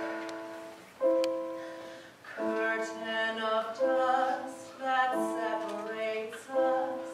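Piano chords struck and left to ring out, then a woman begins singing over the piano about two and a half seconds in.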